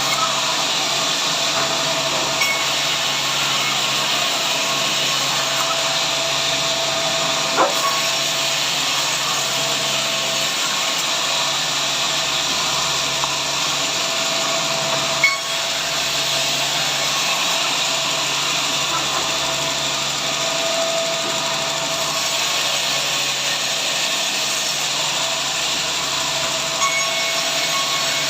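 Sawmill saw running steadily while cutting timber, with a couple of brief knocks, about a third and about halfway through.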